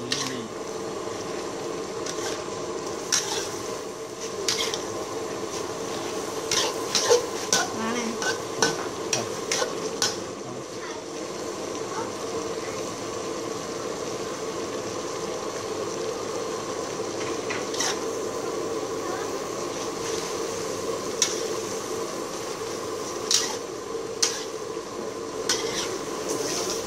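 Stir-frying in an aluminium wok: a metal spatula stirs and scrapes vegetable stalks and meat while they sizzle in the hot pan. Sharp clinks of the spatula against the wok come in clusters, with a quieter stretch in the middle.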